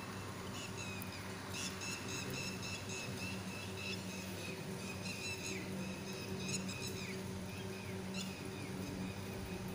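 A bird calling in long, high-pitched notes that begin about half a second in, break off with a falling drop around seven seconds, and come back briefly near the end. A steady low hum runs underneath.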